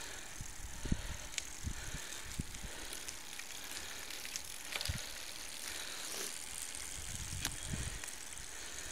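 Steady rushing wind and road noise from moving along with road bicycles, with uneven wind buffeting on the microphone and a few sharp clicks.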